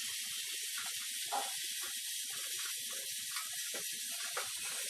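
Steady hiss from an old camcorder's recording, with faint, indistinct low sounds underneath.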